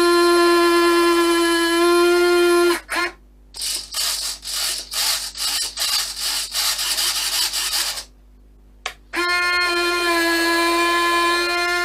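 Small electric servo motors in a model plane's nose undercarriage whining with a steady pitched hum. About three seconds in the hum breaks into a few seconds of stuttering buzzes, with a short pause, and about nine seconds in the steady hum returns.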